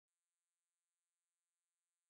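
Near silence: only an extremely faint, steady electronic hum.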